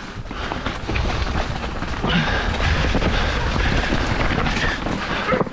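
Mountain bike running fast down a rocky, leaf-strewn trail: tyres rattling over loose stones, with wind rushing on the microphone. From about two seconds in, a steady higher tone rides over the rumble.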